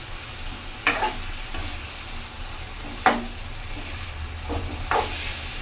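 Chicken sizzling in butter and oil in a pan while a spoon stirs it, knocking sharply against the pan about four times.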